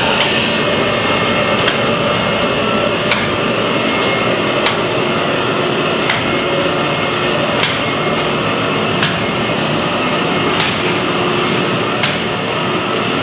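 Harris HRB-1C recycling baler and its steel-belted feed conveyor running while processing cardboard: a loud, steady machine noise with a sharp knock about every second and a half.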